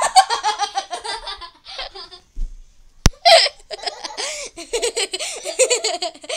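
Young girls laughing hard in repeated fits, broken about three seconds in by one sharp knock.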